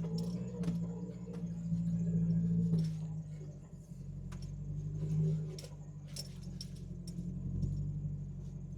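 Jeep Wrangler TJ driving slowly over snow, heard from inside the cab: a steady low engine and drivetrain drone that swells and eases a few times, with frequent light clicks and rattles.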